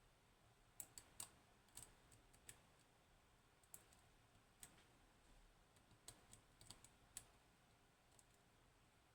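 Faint, irregular clicks of a lock pick working the pins of a 15-pin Codkey Locksys lock, sometimes two or three in quick succession.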